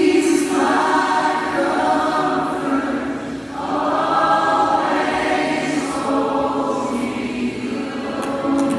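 A choir singing together in long, held phrases, about three of them, each swelling in after a short breath.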